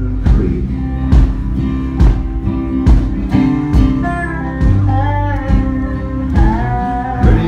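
Acoustic guitar strummed steadily, about one stroke a second, under a man singing a slow country ballad, recorded live.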